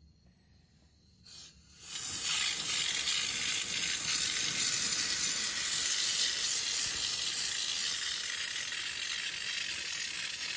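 Compressed-air underbody spray gun spraying stone chip protection coating: a steady hiss that starts about two seconds in, after near silence and a brief puff.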